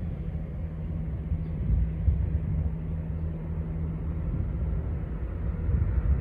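Fishing boat's engine running steadily with a low hum and rumble.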